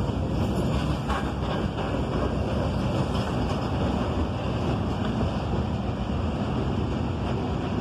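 Steady rolling rumble of a Norfolk Southern freight train's cars passing on the track below, mixed with wind buffeting the microphone.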